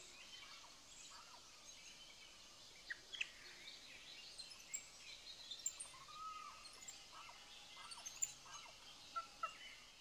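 Faint Amazon rainforest ambience: a steady high hiss with scattered short chirps and calls from animals, and one longer arched call about six seconds in.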